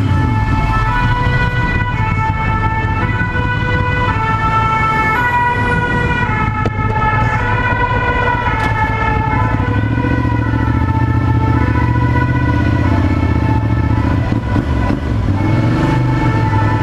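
Two-tone emergency-vehicle siren sounding, switching back and forth between two pitches over and over, over the steady low running of a Ducati Monster 796's L-twin engine.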